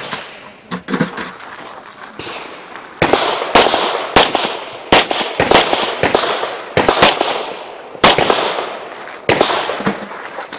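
A string of about nine gunshots, spaced roughly half a second to a second apart, each followed by a long echoing tail; they begin about three seconds in, after a quieter stretch.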